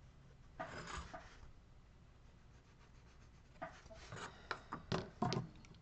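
Faint short scrapes and sharp taps on a small wooden carving, worked or handled by hand, in two brief clusters: one about half a second in and a busier one from about three and a half seconds.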